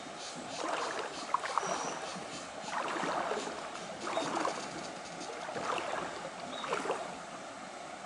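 Horse's hooves splashing through a shallow river, with uneven surges of splashing about once a second and a few sharp knocks among them.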